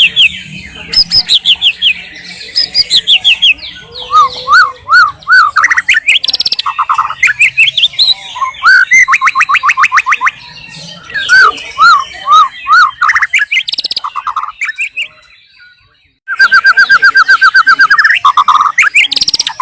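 White-rumped shama singing a loud, varied song of whistled phrases, sweeps and fast trills. It pauses briefly about three-quarters of the way through, then resumes with a rapid run of evenly repeated notes.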